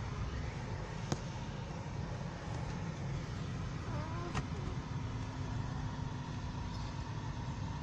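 Steady low rumble of a moving car heard from inside the cabin, with two sharp clicks, about a second in and about four seconds in.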